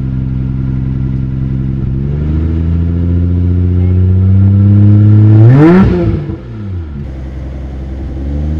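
Nissan Skyline GT-R's RB26 twin-turbo straight-six free-revving with the car standing still. It idles steadily, climbs in pitch over about three seconds, then drops sharply back toward idle with a short hiss as the throttle closes, and rises slightly again near the end.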